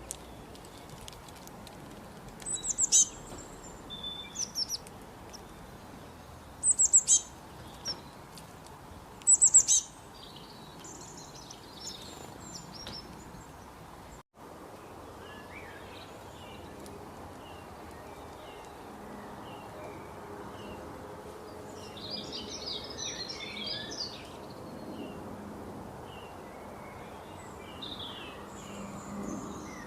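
Birds calling: three loud, sharp, high calls in the first ten seconds. After a brief break about halfway, many softer quick chirps follow, thickest a little past twenty seconds in.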